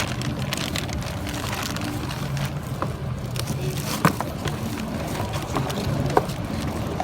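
A few light knocks and clicks from the parts of a newly unboxed brush cutter being handled, the clearest about four seconds in and another about six seconds in, over a steady low background rumble.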